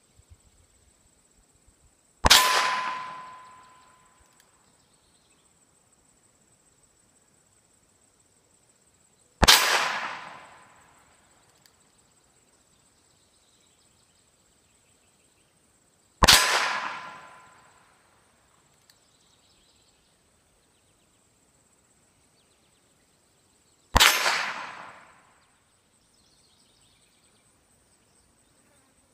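Four single shots from a Ruger Single Ten .22 LR single-action revolver, spaced about seven seconds apart, each crack trailing off over a second or so. After each of the first three shots a steel target rings with a clear tone, marking a hit.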